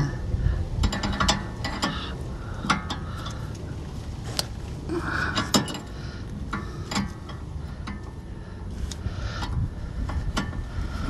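A wrench turning the front toe adjustment under an SUV: irregular metallic clicks and clinks of the tool on the steering linkage as the toe-in is being reduced.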